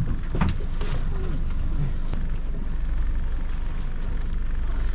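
Steady low rumble of a small open fishing boat at sea, with a few faint voices in the first two seconds.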